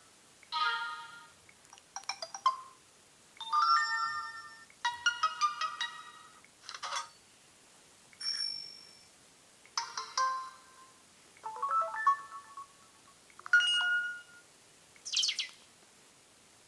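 Samsung Galaxy Ace (GT-S5830) phone playing its built-in tones one after another: about ten different short chimes and jingles, each a second or less, with brief pauses between them.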